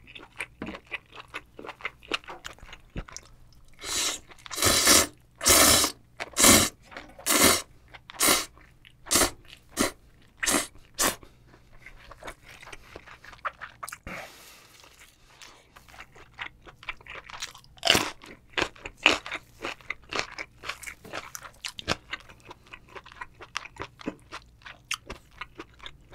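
A person eating spicy cold noodles with chewy horned turban shell meat close to the microphone: a run of about ten loud slurps, roughly one a second, in the first half, then steady, quieter wet chewing with two louder bites partway through.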